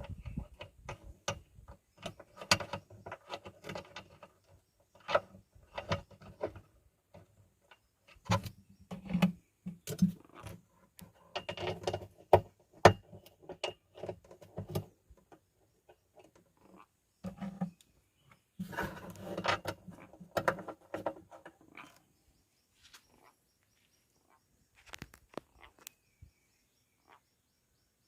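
Scattered, irregular clicks and knocks with quiet gaps between them, like objects being handled and bumped.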